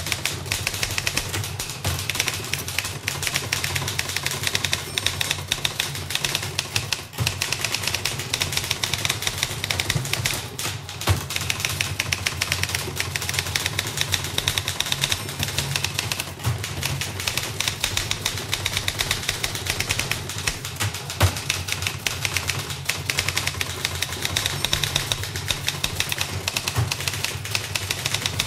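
Two manual typewriters being typed on fast together: a dense, unbroken clatter of key strikes, with a few louder clacks along the way, heard close in a small office.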